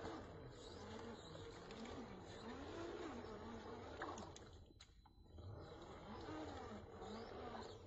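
Electric motor and geared drivetrain of an Austar SCX10 II clone 1/10-scale RC rock crawler whining as it crawls over rocks. The pitch rises and falls as the throttle is worked, with a short drop about five seconds in.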